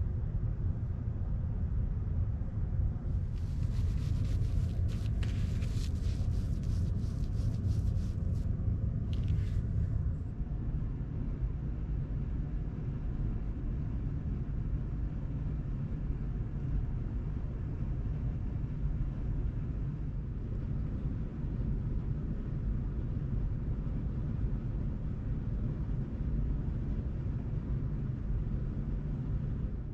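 Steady low rumble, with a run of rapid crackling, rustling clicks from about three to ten seconds in.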